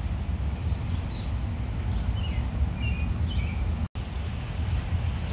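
A few short bird chirps near the middle, over a steady low rumble of outdoor background noise.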